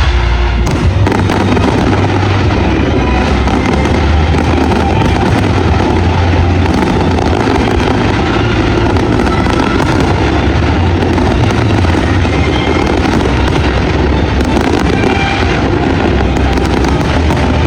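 Aerial fireworks display going off in a dense, continuous barrage: many shells bursting close together, with deep booms underneath and crackle on top.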